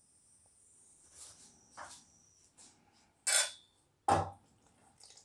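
A few short, quiet scrapes and rustles from a spoon and a hand stirring dry gram flour, maida, semolina and chili powder in a steel bowl, the loudest a little past three and about four seconds in.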